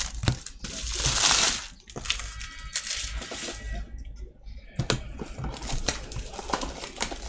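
Plastic trading-card pack wrappers and box shrink-wrap crinkling as packs are torn open and handled. A loud crinkling rush comes about a second in, followed by quieter scattered rustles and light clicks of cards and boxes.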